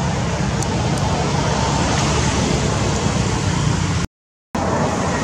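Steady rushing noise with a low rumble, dropping out to silence for about half a second near the end.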